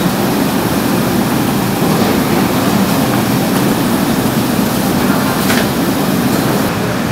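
Steady low rumble of commercial kitchen ventilation, with a few faint taps of a chef's knife slicing cucumber into strips on a plastic cutting board.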